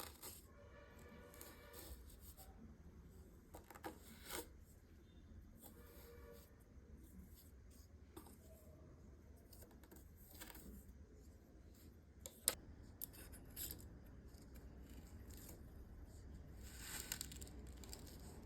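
Kinetic sand being cut and shaped: mostly quiet, with a scattering of soft crunches and scrapes and a few sharp clicks, the loudest about two-thirds of the way through.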